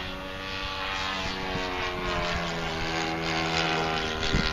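Hangar 9 Saratoga radio-controlled model plane's engine and propeller droning in flight, the pitch drifting slowly up and down as it flies past.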